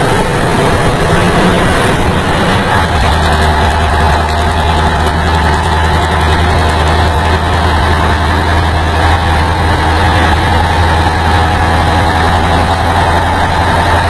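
Diesel engine of a 1961 FNM 'Brasincão' truck running steadily at cruising speed, heard from inside the cab. A deep, even drone mixed with wind and road noise.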